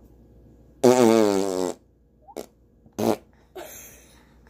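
An arm fart: lips pressed to a forearm blow a loud, buzzing raspberry with a wavering pitch for almost a second. A shorter burst of sound follows about two seconds later.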